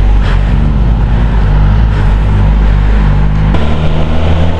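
Suzuki GSX-S1000GT's inline-four engine running on the move, under heavy low wind rumble on the microphone. The engine note shifts about three and a half seconds in.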